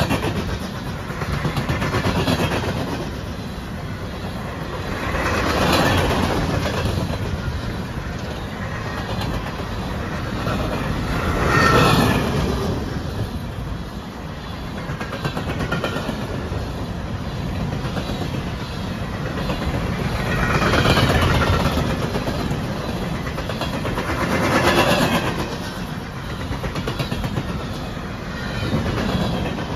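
Empty bathtub coal gondolas of a freight train rolling past, steel wheels clattering over the rail with a steady clickety-clack. The rumble swells and fades every few seconds, loudest about twelve seconds in.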